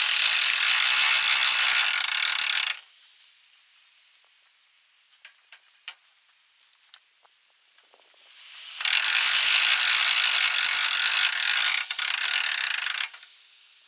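Hand-cranked boat winch ratcheting rapidly as it hauls a heavy load up a trailer ramp. It runs in two spells, about three seconds and then about four seconds, with a pause between that holds only a few faint clicks.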